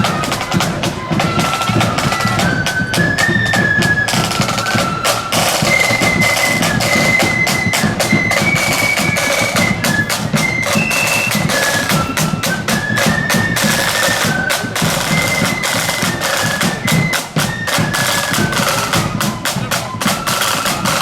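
Marching flute band playing a tune: a high melody from the flutes in unison over snare and bass drums beating steadily.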